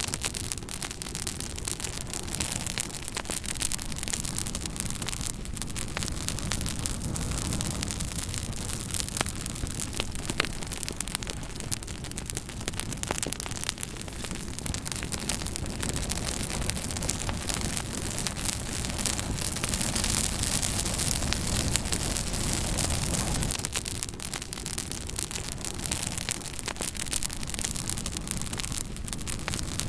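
Fire crackling steadily: a dense hiss of flame, thickly speckled with many small sharp pops.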